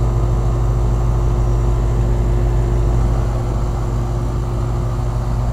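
1992 Lennox central air-conditioner condensing unit running: a steady low hum from the compressor and condenser fan, with a faint steady tone above it. The unit is not cooling, which the owner puts down to low or no Freon.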